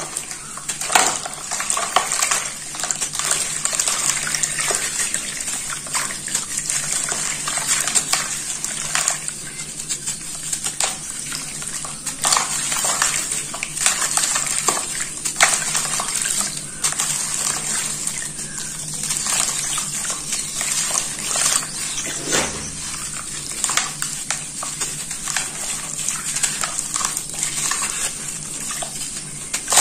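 A block of dry red dirt crumbling in hands, with a steady stream of gritty crunches as crumbs and chunks drop and splash into a tub of water. A faint steady low hum runs underneath.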